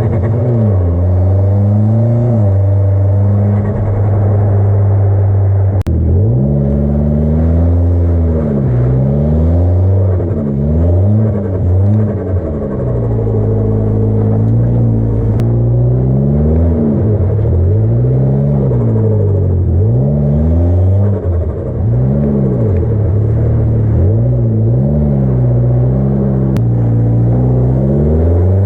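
A Mitsubishi Lancer's turbocharged 2.0-litre four-cylinder engine revving up and down over and over as the car spins donuts in snow, its pitch rising and falling every second or two.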